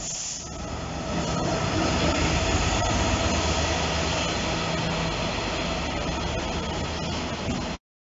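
A British Rail Class 66 diesel freight locomotive, with its EMD two-stroke V12 engine, passes close by with a low steady engine hum, followed by the rumble and clatter of its freight wagons on the rails, with occasional knocks of wheels over rail joints. The sound cuts off suddenly near the end.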